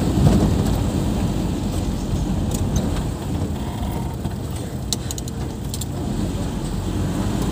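Car engine and road noise heard from inside the cabin while driving slowly, a steady low rumble. A few light clicks or rattles sound about two and a half and five seconds in.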